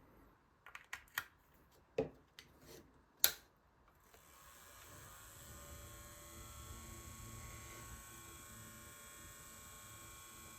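A few sharp clicks, then a small DC motor starts about four seconds in and runs with a steady faint hum and whine: the homemade USB table fan spinning.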